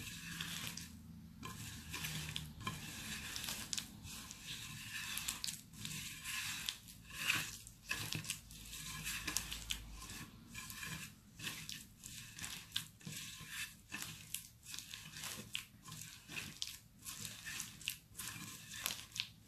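Butter being creamed with sugar by hand on a porcelain plate: a continuous run of soft, irregular squishing and smearing strokes as the fingers work the mixture and scrape the plate.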